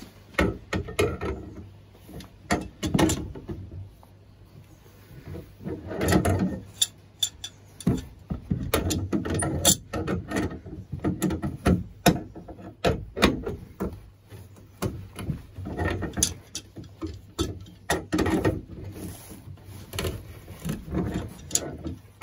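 Pliers and a spanner clicking and scraping against the brass nuts of a compression-fitting isolation valve on copper pipe as the nuts are tightened, in irregular bursts of metal clicks.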